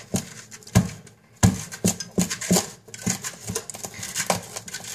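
A kitchen knife sawing and levering through the hard rind of a raw spaghetti squash, with irregular scrapes and knocks against the cutting board. The squash is hard to cut, which the cooks take for an underripe one.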